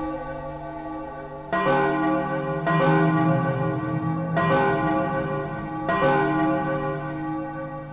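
Bells ringing: four strikes a second or more apart, each ringing on and slowly fading, over the fading ring of an earlier strike.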